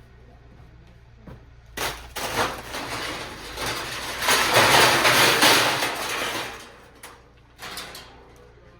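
Scrap metal clattering and scraping as it is loaded onto a pile: sharp metal impacts about two seconds in, then a long, loud rattling scrape for several seconds that dies away, followed by two short knocks.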